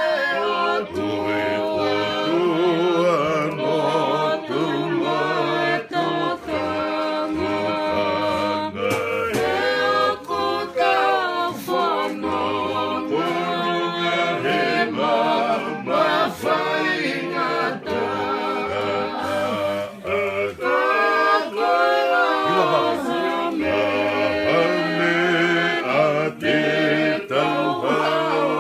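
Several voices singing together in harmony, with an acoustic guitar underneath.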